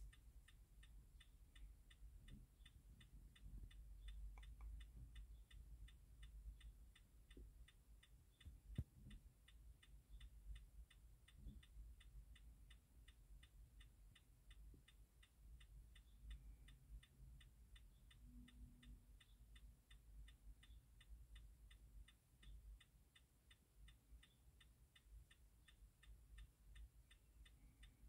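Faint, steady, rapid ticking, about three to four ticks a second, over near silence, with a few soft knocks.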